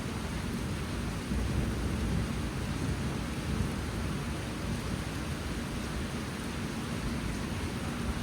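Steady heavy monsoon rain falling: a dense, even hiss with a low rumble underneath, without a break.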